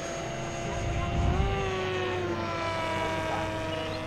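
Electric ducted-fan motor of an FMS BAE Hawk model jet whining in flight. The pitch rises about a second in, then slowly falls as it passes, with wind rumble on the microphone.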